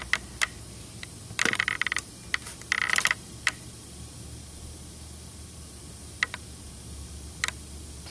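Brush applying contact cement to a door: quick clusters of clicking ticks about a second and a half in and again around three seconds, with a few single ticks later.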